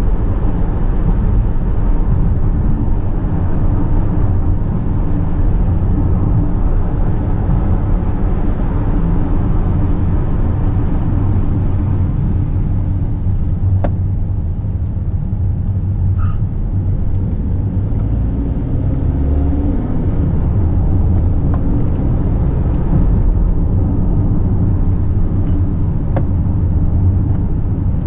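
A car being driven, its engine and tyre noise heard from inside the cabin as a steady low rumble, with a few faint clicks.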